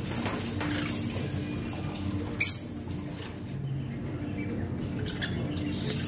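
Small caged parrots chirping, with one loud, shrill call about two and a half seconds in and fainter calls near the end, over a steady low hum.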